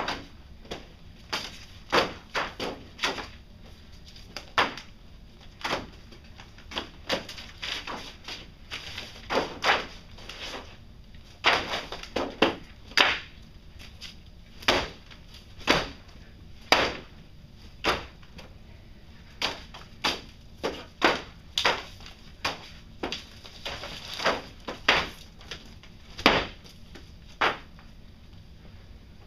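Irregular sharp knocks and thuds, one or two a second, some in quick pairs, over a steady low background hum.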